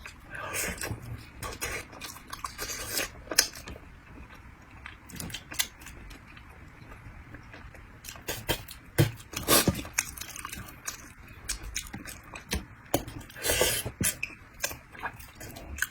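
A person eating bighead carp head close to the microphone: chewing with irregular wet clicks and smacks.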